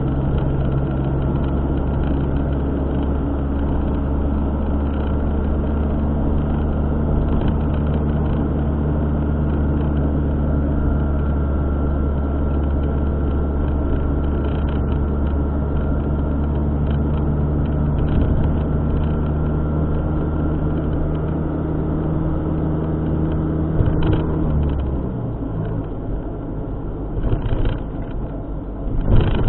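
A car's engine and road noise heard inside the moving car, a steady low drone at constant speed. Near the end the low drone drops away as the car eases off, and a few short knocks follow.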